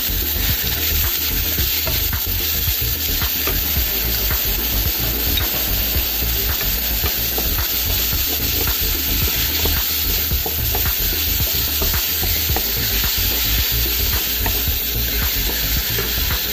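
Raw chicken pieces sizzling in hot oil in a nonstick wok, freshly added, and stirred with a wooden spatula that scrapes and knocks lightly against the pan. The sizzle is a steady hiss.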